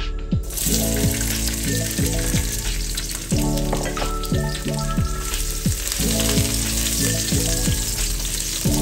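Sliced ginger and crushed garlic sizzling in hot oil in a stainless steel wok, the hiss starting about half a second in as they hit the oil and continuing while they are stirred. Background music with a steady beat plays under it.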